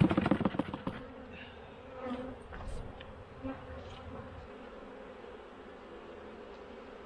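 Honeybees buzzing steadily around an open hive during a robbing frenzy, with single bees buzzing loudly past the microphone a few times. In the first second, a loud rapid rattle of clicks as a wooden frame is worked out of the hive box.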